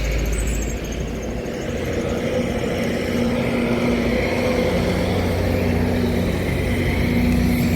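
Motor vehicle running steadily with road rumble, a low engine hum whose held tones shift a little in pitch.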